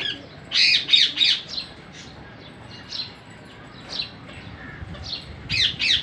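Indian ringneck parakeets squawking: a burst of harsh, high calls about half a second in, a few single calls through the middle, then another flurry near the end.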